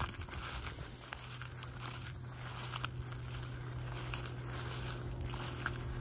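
A distant combine harvester's engine humming steadily, starting about a second in, under a rustling noise of wind and dry wheat.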